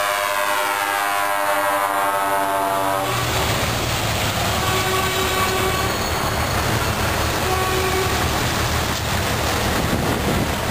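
A lorry's multi-tone air horn blares a chord that slides slightly down in pitch and stops about three seconds in. Heavy diesel trucks then rumble past, with a few short horn toots.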